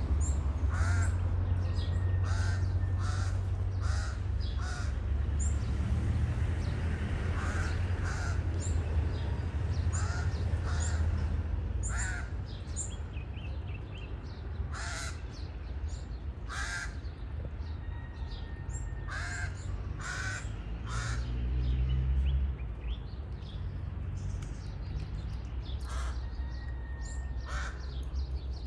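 A flock of crows cawing over and over, many short calls overlapping from several birds, over a steady low rumble.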